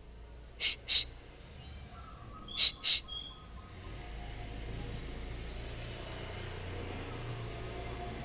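Two pairs of short, high bird calls, the two calls in each pair close together and the pairs about two seconds apart. A steady low rumble of background noise rises from about four seconds in.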